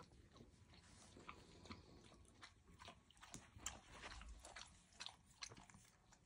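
Faint, irregular soft clicks and rustles from newborn Airedale Terrier puppies squirming together on a blanket and their mother nuzzling them, with mouth sounds like licking or chewing.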